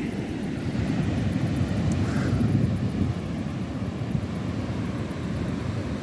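Wind buffeting the microphone in a steady low rumble, swelling a little between about one and three seconds in.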